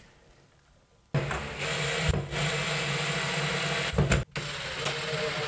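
DeWalt cordless drill/driver running steadily as it drives a screw through an aluminium mounting bracket into the wall. It starts about a second in, with a short sharp sound and a brief break about four seconds in.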